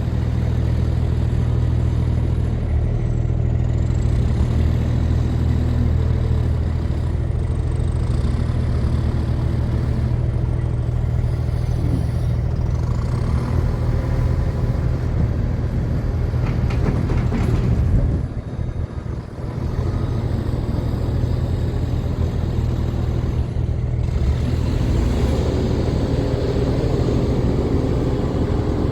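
Diesel engine of a Fermec TLK760 backhoe loader running steadily while it loads dirt, with a faint high whine that rises and falls. The engine note dips briefly about two-thirds of the way through, and grows busier near the end.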